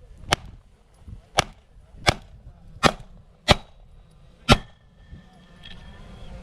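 Six handgun shots fired one at a time at an uneven pace, roughly a second apart, ending about two-thirds of the way through.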